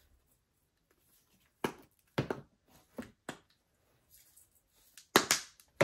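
Spice shakers being handled: scattered sharp clicks and taps from their plastic flip caps and from the bottles being set down on a wooden table, with the loudest pair of clicks near the end.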